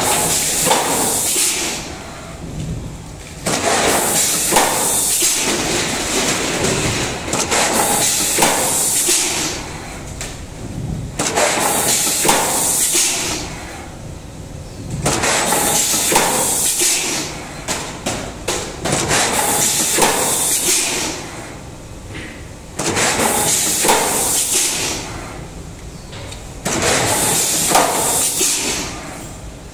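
PP fast-food tray thermoforming machine running its forming cycle: roughly every four seconds a loud hiss of air, about two seconds long, with knocks and clunks of the press and mould in between.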